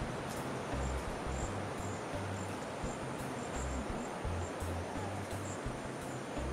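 Night insects, crickets, chirping over a steady hiss, with short high-pitched chirps repeating irregularly. A low rumble comes and goes underneath.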